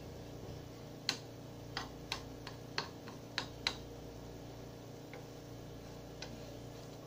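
A metal spoon clicking lightly against a frying pan: about seven sharp, irregular clicks starting about a second in, then one more near the end, over a steady low hum.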